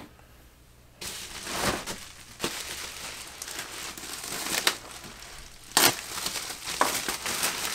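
Plastic protective wrapping crinkling and rustling as a wrapped model-aircraft canopy is handled. It starts about a second in and is full of sharp crackles, with a louder crackle near six seconds.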